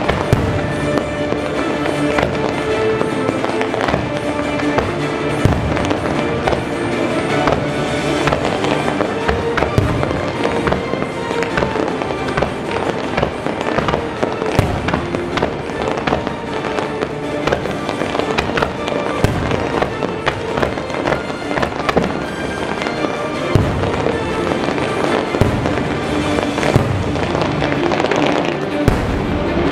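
Aerial fireworks going off in quick succession: a dense run of shell bursts and crackling, with music playing alongside.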